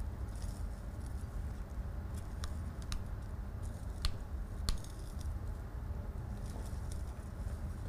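Kitchen string being wound and pulled tight around a leek-wrapped bouquet garni: faint rubbing and handling with a few sharp clicks, the sharpest about four and four and a half seconds in, over a steady low hum.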